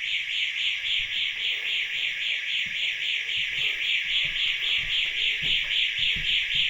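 Building intruder alarm sounder set off by the motion sensors, giving a continuous high-pitched electronic tone that pulses rapidly several times a second.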